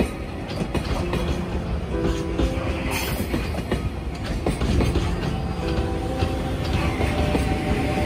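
Container freight wagons rolling slowly through a yard, a steady rumble with wheels clacking over rail joints and points and squealing at times.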